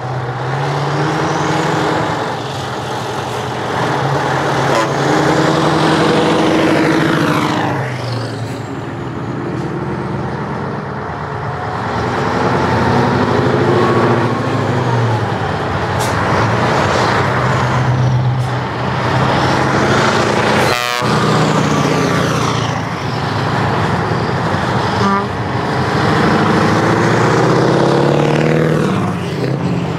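Diesel trucks driving past one after another, among them a Scania 141 with its V8, engine notes rising and falling as each goes by. A horn toots along the way, and there are a couple of sharp clicks in the second half.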